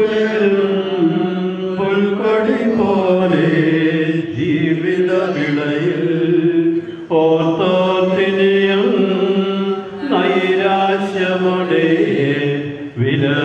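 Voices chanting a slow funeral hymn in long held phrases, pausing briefly about every two to three seconds.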